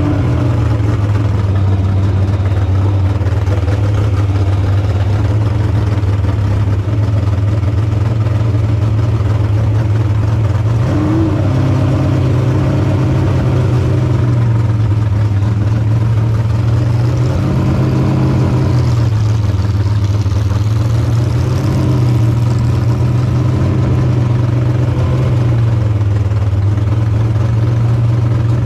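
Jet sprint boat engine idling steadily, with a few short rises in pitch from light throttle blips.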